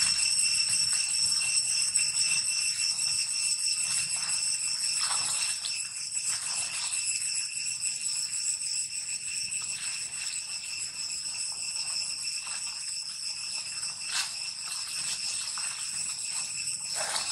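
Insects droning: a steady, high-pitched ringing chorus that holds one pitch throughout and slowly grows quieter over the first half.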